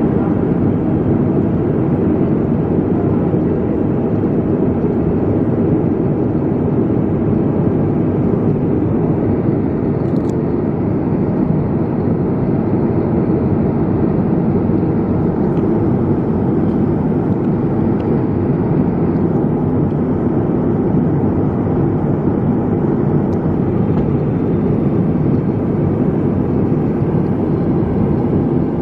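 Steady cabin noise of a Boeing 787-9 airliner in flight: an even rush of engine and airflow noise heard from inside the cabin.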